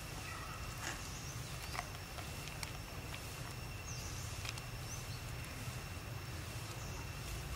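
Outdoor ambience: a steady low rumble under a thin, steady high-pitched hum, with a few faint clicks and a brief high chirp about four seconds in.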